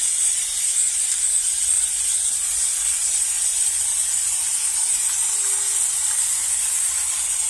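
Aerosol spray-paint can spraying in one long, steady hiss, laying a second coat of paint over primer on car sheet metal.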